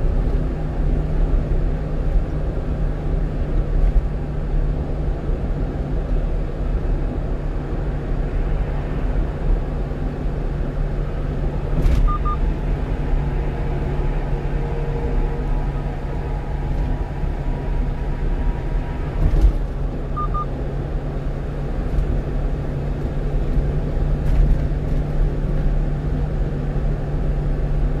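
Steady road and engine noise inside the cab of a 1-ton truck cruising on an expressway, with a constant low hum and a couple of faint brief clicks partway through.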